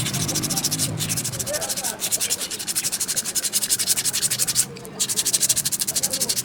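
Quick, even rasping strokes of an abrasive working a bicycle brake shoe, with a short break about three-quarters of the way through.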